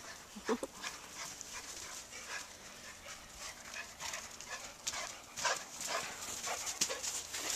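Pit bulls romping in snow, their paws crunching irregularly as they run and tussle. There is a brief dog vocal sound about half a second in.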